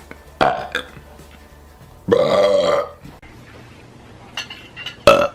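A man belches loudly once, a drawn-out burp of nearly a second. It is preceded by a brief sound about half a second in and followed by another short, loud sound near the end.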